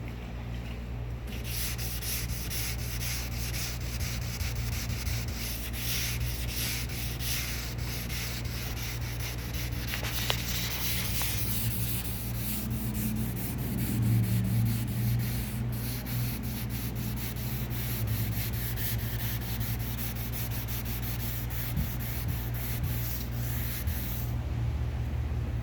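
Sandpaper being rubbed by hand over car body paint in quick back-and-forth strokes, sanding out a deep key scratch. The strokes start about a second in and stop near the end, over a steady low hum.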